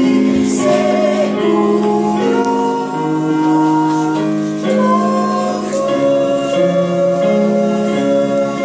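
Two women singing a song to electronic keyboard accompaniment, the keyboard playing long held notes that change step by step beneath the voices.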